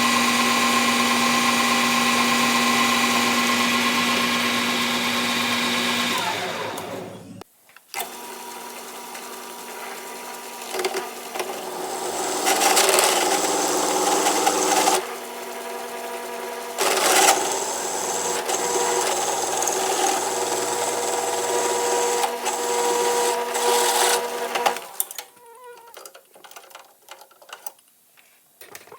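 Metal lathe running with a steady hum that winds down and stops about seven seconds in. A machine then starts again with a different tone, with louder rough cutting noise in two long stretches, and stops near the end.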